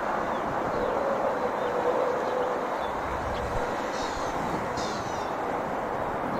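Steady outdoor background noise, with two short runs of quick, high bird chirps about four and five seconds in.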